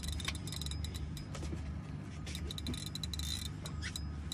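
Boat engines idling with a steady low hum while a large spinning reel is cranked against a hooked tarpon, its gears ticking and whirring as the line comes in under load.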